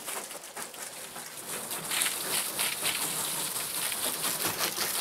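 Water from a garden hose spraying onto a tractor's radiator and the underside of its raised hood, a steady spattering hiss like rain that grows louder about two seconds in.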